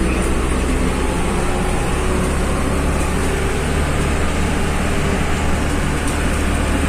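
Bus engine and road noise heard from inside the passenger cabin while driving: a steady low drone with no sudden changes.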